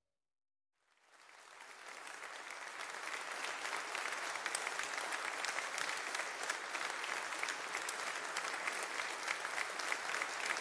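Large audience applauding. It comes in about a second in after a moment of silence, swells over the next couple of seconds, then holds as steady dense clapping.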